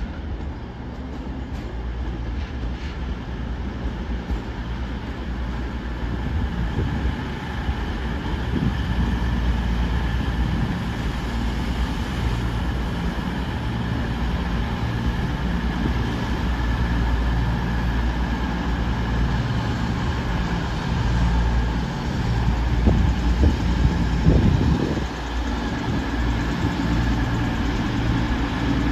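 Train at a station platform: a steady low rumble with faint held whining tones, growing gradually louder, with a brief louder swell near the end.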